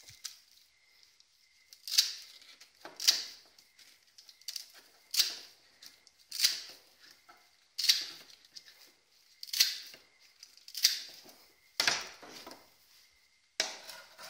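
Aviation tin snips cutting lengthwise through a flexible water heater hose's braided stainless-steel jacket and rubber lining: about eight sharp crunching snips, one every second or two, followed near the end by a longer rasping sound.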